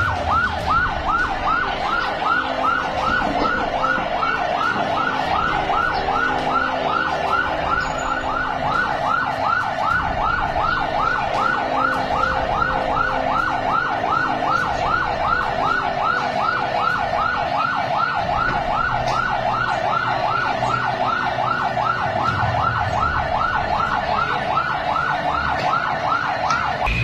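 Emergency vehicle siren in a fast yelp: quick rising sweeps repeating about three times a second without a break.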